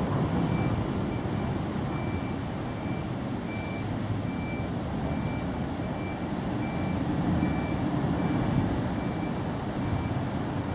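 A vehicle's reversing alarm beeping at one high pitch, about twice a second, over a low engine rumble.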